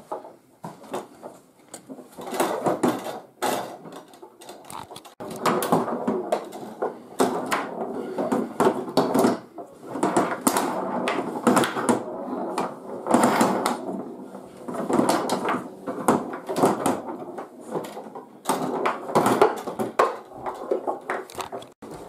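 Table football being played hard: frequent sharp clacks of the ball and plastic players striking each other, with the metal rods rattling and sliding in the wooden table.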